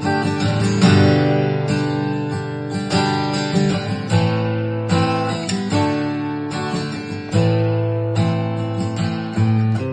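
Background music: acoustic guitar strummed in a steady rhythm, with chords struck about once a second.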